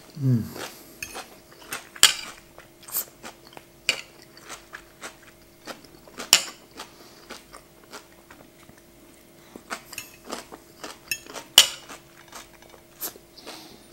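Close-up eating sounds: chewing chicken and salad, with a steel knife and fork clinking and scraping on a ceramic plate in sharp clicks every second or so. The eater gives a short low hum of pleasure at the very start.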